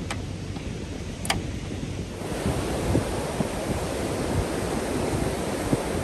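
Gulf surf breaking and washing up the beach, with wind buffeting the microphone. Before the surf comes in about two seconds in, there is only wind noise with two sharp clicks.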